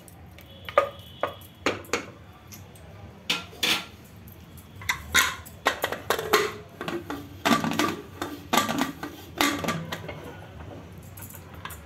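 Metal spoon clinking and scraping against the inside of an aluminium pressure cooker, then the cooker's lid being set on and turned to lock, with a string of sharp metal-on-metal knocks and clanks.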